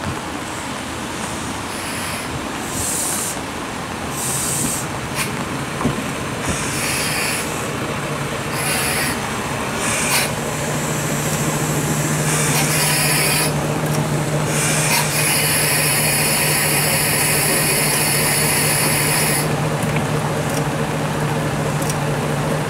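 Single-car diesel railcar pulling into a station and stopping, with high-pitched squeals coming and going as it slows. Once it has halted, its diesel engine idles with a steady low hum, and a steady high-pitched sound holds for a few seconds.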